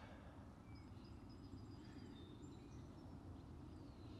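Near-silent outdoor ambience: a faint low background rumble, with distant birds chirping now and then.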